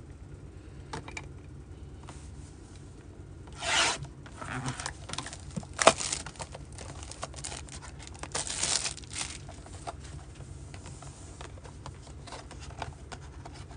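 Hands opening a sealed trading-card box: the wrapper and cardboard rub and tear in a few short bursts, with scattered small clicks and taps between them.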